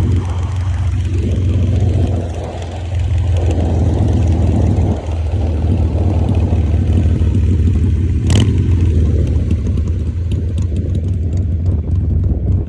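Harley-Davidson Evo 883 air-cooled V-twin engine running with a deep, steady low rumble, its note swelling and easing several times with the throttle. A single sharp click sounds about eight seconds in.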